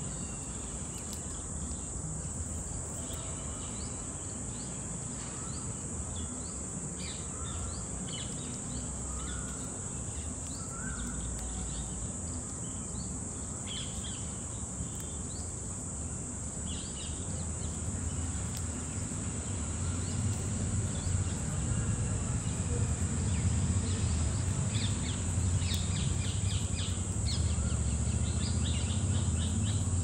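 Outdoor ambience: a steady high-pitched insect drone with scattered short bird chirps over it, and a low rumble that grows louder over the second half.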